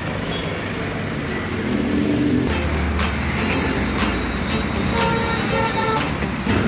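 Road traffic passing close by, with the low rumble of a heavy vehicle from about two and a half seconds in. A vehicle horn toots several times in quick succession about five seconds in, and there are a few sharp knocks.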